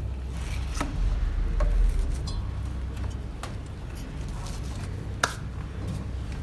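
A few sharp clicks and light taps, the loudest about five seconds in, from tools and parts being handled while working on a washing machine, over a low steady hum.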